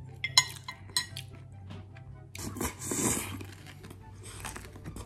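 Steel knife and fork clinking against a ceramic plate: two sharp, ringing clinks in the first second, then about a second of rougher noise about halfway through.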